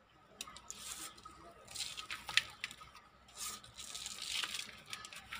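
Handfuls of loose, dry potting soil scooped up and dropped into a pot around a thuja's root ball, making dry crumbling, rustling sounds in several short spells.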